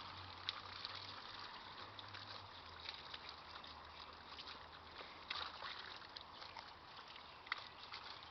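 Water from a garden hose spraying and splattering steadily, with scattered small splashes.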